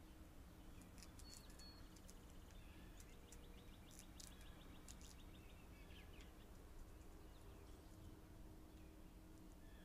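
Near silence outdoors with faint birdsong: a short high chirp about a second in, then a rapid trill lasting a couple of seconds, among a few faint clicks.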